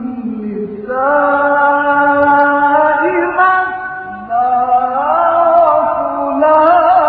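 A man reciting the Quran in the melodic, drawn-out mujawwad style. Two long phrases: the first starts about a second in, and a higher one starts after about four seconds, bending and wavering near the end.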